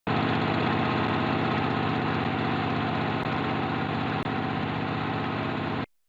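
Film projector running as the sound of a countdown leader: a steady, fast mechanical whirring clatter, with a faint tick about once a second. It cuts off suddenly near the end.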